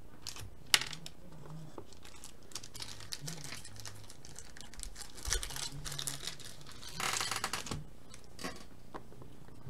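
Hands handling a trading card in a plastic sleeve, with a sharp tap about a second in, scattered soft ticks and rustles, and a burst of crinkling plastic rustle around seven seconds in.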